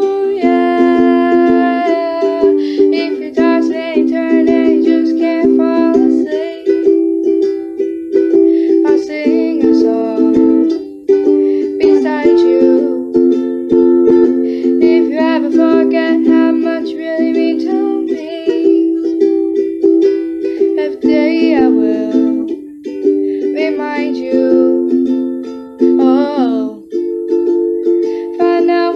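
Ukulele strummed in chords, with a girl's voice singing the melody along with it.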